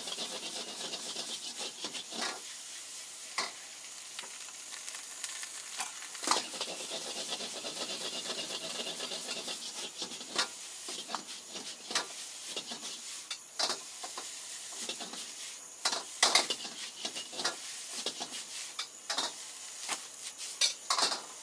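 Egg fried rice sizzling in a wok over a high flame, with a steel ladle scraping and clanking against the wok again and again as the rice is stirred and tossed.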